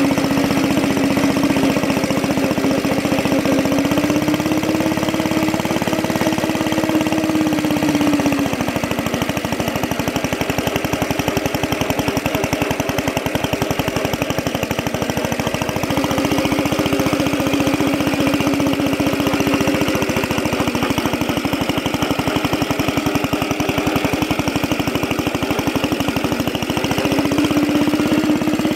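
The small air-cooled gas engine of a homemade wooden walk-behind tractor running under load as the tractor is driven. Its speed rises and falls several times. It is kept wound up because the rig has little power and would otherwise die out.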